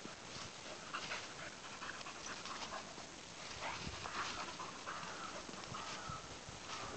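Springer spaniel panting, with irregular rustling in dry fallen leaves.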